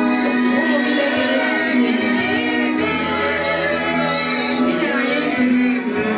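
Choir singing over sustained held chords.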